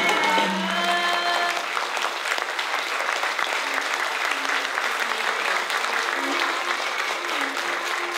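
Audience applause, a dense steady clapping. In the first second and a half the last held notes of the accompanying Carnatic music ensemble sound under it.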